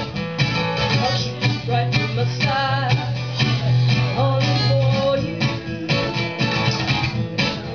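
Acoustic guitar being strummed by hand, chords rung out in a steady rhythm of repeated strokes.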